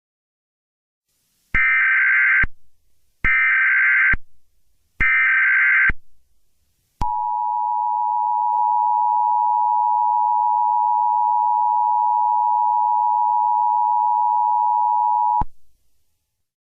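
Emergency Alert System broadcast alert: three bursts of SAME header data, each about a second long, followed by the steady two-tone EAS attention signal. The tone is held for about eight seconds, then cuts off, signalling that a spoken emergency message is about to follow.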